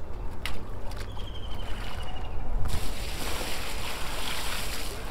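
Water poured from a bucket onto a fish lying in a landing net, a steady splashing that starts about halfway through and runs on for a couple of seconds. A few light knocks come before it.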